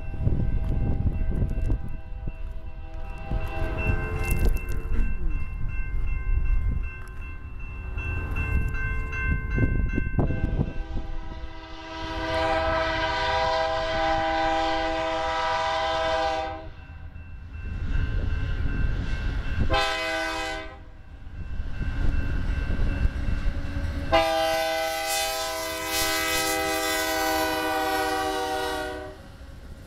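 Air horn of a BNSF GE C44-9W freight locomotive sounding the grade-crossing signal: a long blast, a short blast, then a final long blast held as the lead locomotive reaches the crossing. Under it runs a heavy low rumble of the approaching diesel locomotives, with a steady ringing from the crossing signal bell early on.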